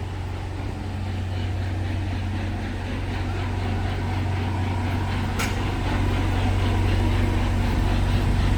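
A vehicle engine running steadily at a low, even hum that slowly grows louder, with a brief sharp click about halfway through.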